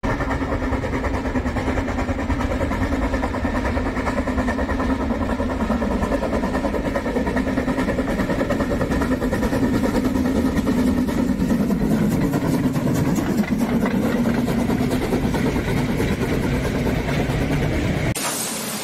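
Narrow-gauge HSB steam locomotive chuffing steadily as it approaches and passes close by, its train of coaches rolling past behind it. The sound cuts off abruptly near the end.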